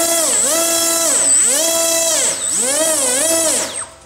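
Small electric motor on a model airplane spinning its propeller at high speed, throttled up and down several times so its whine rises, holds and falls, with a steady high whistle alongside; it winds down and stops near the end.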